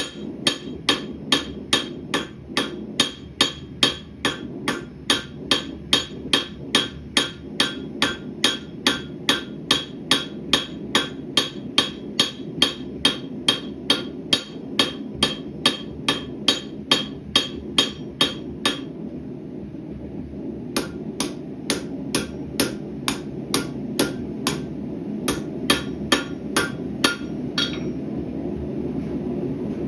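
Hammer blows on hot rebar on an anvil, hand-forging a knife blade: steady ringing strikes at about two a second that pause near two-thirds of the way through, then resume for a shorter run. A steady low rush, typical of a gas forge burner, continues underneath.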